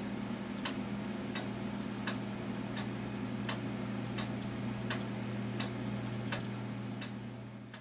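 Pendulum clock ticking: the escapement of a 1913 Gilbert time-and-strike movement, with sharp, evenly spaced ticks about every 0.7 seconds, the clock running in beat. A steady low hum sits underneath, and the sound fades out near the end.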